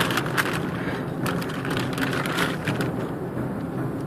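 A soft tripod bag being opened quickly: a fast run of scraping, rustling strokes for about three seconds, then only a steady low hum.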